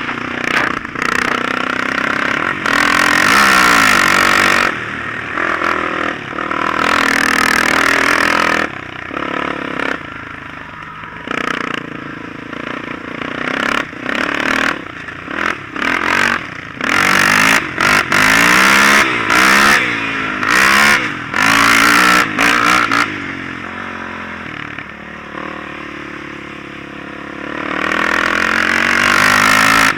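Side-by-side UTV engine revving hard over sand dunes, its pitch climbing and dropping again and again as the throttle is worked. Bursts of rushing noise come and go.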